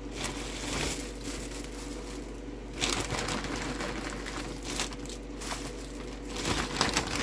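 Plastic packaging crinkling and rustling as it is handled, in irregular bursts, louder about three seconds in and again near the end.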